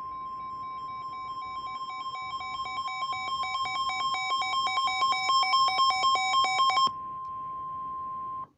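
NOAA Weather Radio's 1050 Hz warning alarm tone, a steady high tone, with a weather radio receiver's pulsing alert beep over it that grows louder and stops about seven seconds in. The steady tone cuts off just before the end.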